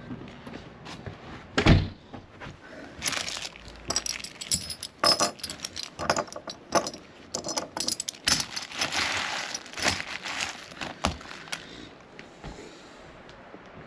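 Packaged parts being handled: plastic bags crinkling and small metal parts clicking and rattling, with one heavy thump about two seconds in.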